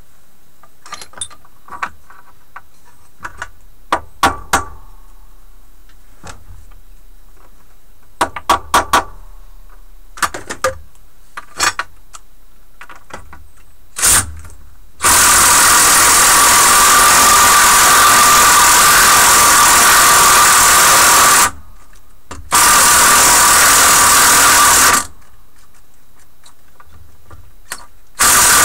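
Scattered clinks and knocks of bolts and tools being handled, then a power drill fitted with a socket runs in long steady bursts, about six seconds, then two or three, then again near the end, driving the nuts on the bolts that hold down a bench vise.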